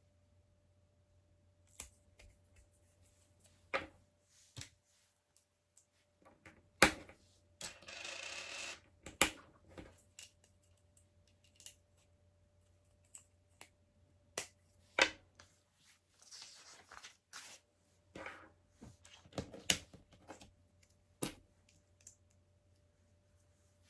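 LEGO bricks being clicked together and pressed onto a build: scattered sharp plastic clicks and snaps, a few of them louder, with two brief spells of rustling.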